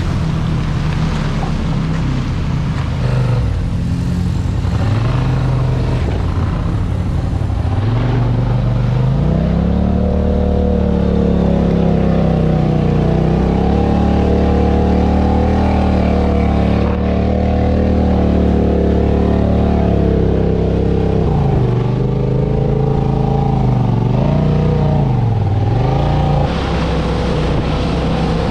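Off-road vehicle engine running under throttle over rough ground. Its pitch drops and climbs several times in the first few seconds, holds high and steady through the middle, then dips twice more near the end.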